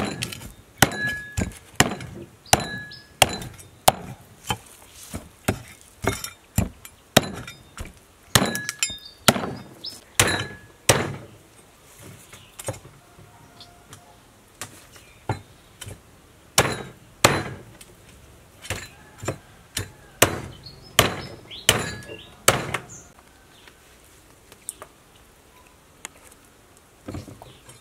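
A large knife scraping the scales off a big river fish on a wooden chopping board: repeated sharp strokes, each a scrape and knock with a light metallic clink, roughly one or two a second. The strokes stop for a few seconds near the end, then start again.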